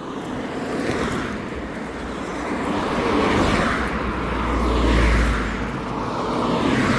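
Road traffic passing: tyre and engine noise from vehicles swelling and fading, with a deep rumble about four to five seconds in.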